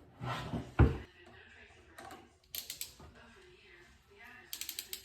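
Rapid clicking of a ratcheting pipe-clamp tool being worked to tighten a clamp onto the pipe, in two short runs, with a sharp knock about a second in.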